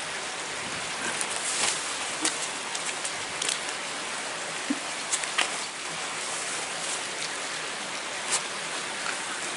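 Steady, even hiss of water, with a few short clicks scattered through it.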